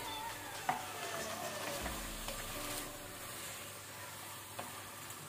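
Chicken pieces sizzling in hot oil and ghee in a pressure cooker on high flame, stirred and turned with a spatula. A single sharp tap comes under a second in.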